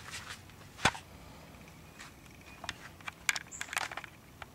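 Footsteps on grass and dry leaves: irregular scattered clicks, the loudest about a second in and a cluster of them in the last second and a half.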